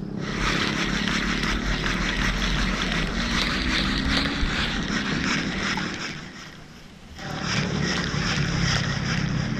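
Spinning reel cranked close up, its gears whirring steadily as a sinking minnow lure is reeled in, with a pause of about a second some six seconds in before the cranking starts again.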